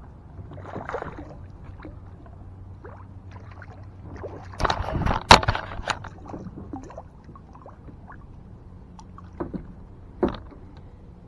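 Splashing and knocks on a kayak while a small hooked fish is fought to the side and brought in. The loudest part is a second-long burst of splashing with a sharp knock about five seconds in, and there are a few lighter knocks near the end.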